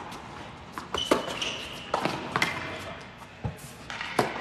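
A tennis ball being struck by racquets and bouncing on an indoor hard court: a series of sharp pops, each followed by an echo in the hall. A brief high squeak comes about a second in.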